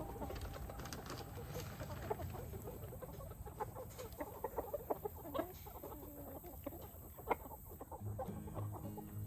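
Chickens clucking, many short calls overlapping, with one sharp click about seven seconds in. Background music comes back in near the end.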